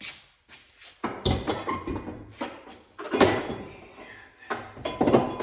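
A series of heavy clunks and knocks, with some scraping and ringing, from metal car parts being handled during driveshaft removal.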